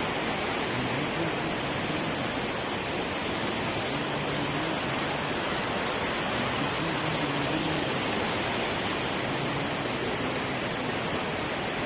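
Kali Gandaki river in monsoon flood, a steady, unbroken rush of fast-flowing water.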